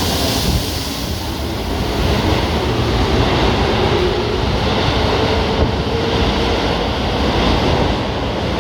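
Keikyu limited express electric train running, a steady loud rumble of wheels on the track with a faint whine that slides slowly in pitch.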